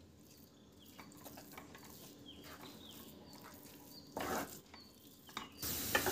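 Wooden spatula stirring and scraping thick atta halwa in a nonstick pan, with faint scrapes and clicks and a louder scrape about four seconds in. Near the end a steady sizzle of the ghee-rich halwa frying in the pan sets in.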